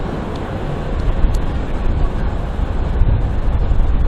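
High-speed catamaran ferry Halunder Jet pulling away under power: a steady deep engine rumble mixed with the rushing wash of its churned-up wake.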